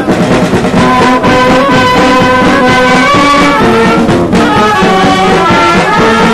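A folk brass band playing a tune, with trumpets, clarinets, saxophone and a big bass horn carrying a melody over a bass line.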